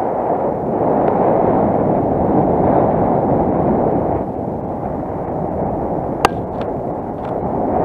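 Wind rushing over the microphone of a paraglider pilot's harness-mounted camera in flight, a loud steady buffeting. A sharp click about six seconds in, followed by two fainter clicks.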